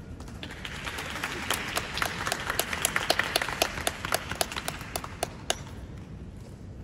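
Spectators clapping in a large sports hall, with no voices; it swells over the first few seconds and dies away with a few last claps about five seconds in.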